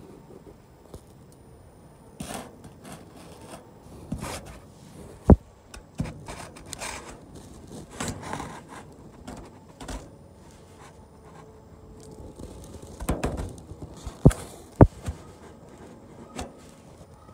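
Handling noise from a phone being moved around inside a Cessna's aluminium wing: irregular scraping and rubbing against the ribs and skin, with a few sharp knocks, one about five seconds in and two close together near the end.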